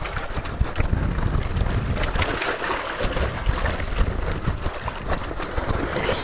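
Wind buffeting the microphone with an uneven low rumble, over the wash of the sea against the rocks.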